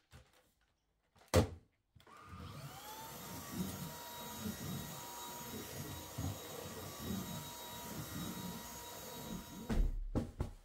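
Cordless stick vacuum cleaner pushed over carpet: its motor starts about two seconds in, whines up to speed and then runs with a steady high whine until it cuts off near the end. A sharp knock comes just before it starts, and a thump comes as it stops.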